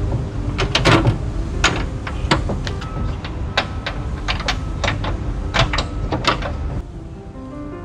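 Humvee tailgate being fitted back on: a dozen or so sharp metal knocks and clanks at uneven intervals, loudest about a second in, as the gate and its fittings are worked into place.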